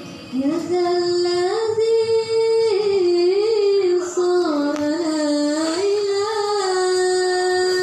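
A young woman singing solo and unaccompanied into a handheld microphone: a slow melody of long held notes linked by small ornamental turns, with a short breath break about halfway through.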